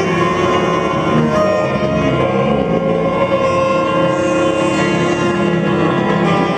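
Live experimental band music: a dense, unbroken drone of many held tones from prepared guitar and saxophones.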